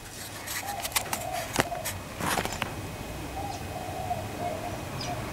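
Low, wavering bird calls repeated about three times, with a few sharp clicks and knocks in between.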